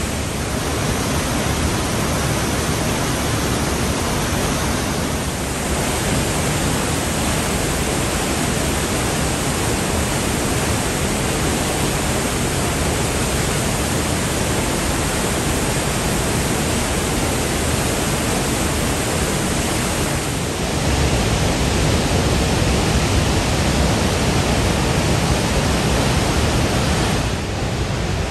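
The Rhine Falls, a wide, powerful waterfall, heard close up as a loud, steady rush of crashing water. The rush grows louder and deeper about twenty seconds in.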